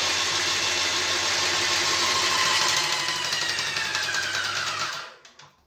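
Graco Ultra 395 PC Pro airless paint sprayer's motor and piston pump running, pumping water, then slowing with a falling whine and stopping about five seconds in. The repaired pump is building pressure without trouble.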